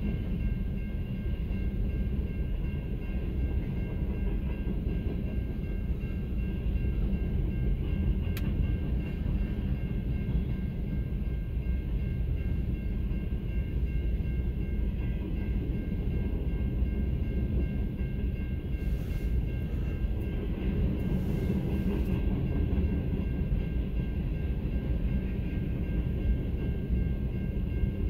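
Empty centerbeam flatcars rolling steadily past a grade crossing: a continuous low rumble of wheels on rail, with faint steady high-pitched tones above it and one sharp click about eight seconds in.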